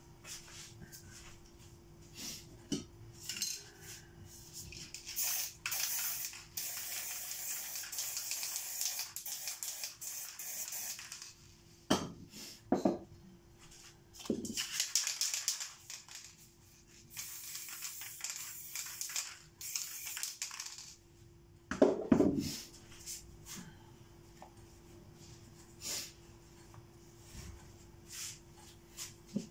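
Aerosol spray paint cans hissing in two long bursts of several seconds each, a few seconds in and again past the middle. Between them come clinks and knocks of metal cans being picked up and set down. A steady low hum runs underneath.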